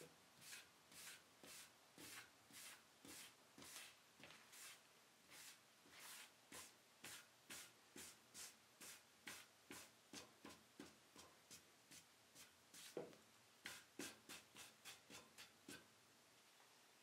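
Cloth rag wiping thinned shellac onto a wood-veneer cabinet top: faint, quick swishing strokes, about two a second, that stop shortly before the end.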